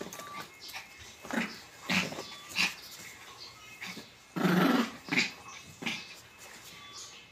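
Miniature pinscher growling in play, a series of short growls with the longest and loudest about four and a half seconds in.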